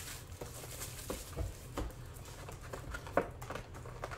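Hands handling and opening a cardboard trading-card hobby box: scattered light taps, scrapes and rustles of cardboard, with a sharper tap about three seconds in.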